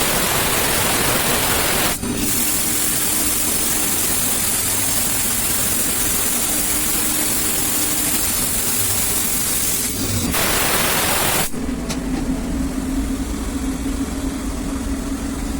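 Hurco five-axis CNC milling machine running, a steady mix of hiss and hum from the spindle and cutting. The sound shifts abruptly three times, alternating between a brighter hiss and a lower hum.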